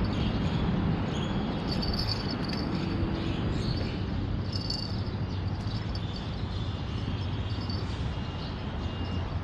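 Steady low traffic rumble from the expressway bridge overhead, with repeated short high chirps over it.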